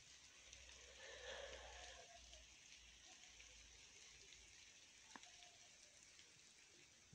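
Near silence: faint outdoor background hiss with a faint low rumble, and one faint click about five seconds in.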